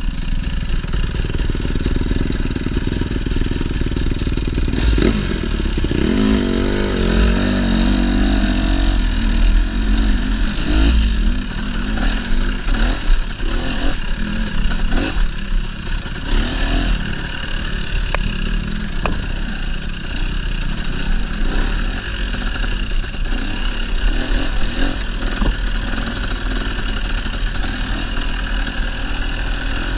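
Dirt bike engine running under changing throttle, its pitch rising and falling as it is ridden along a trail, with scattered knocks and rattles from the bike over rough ground.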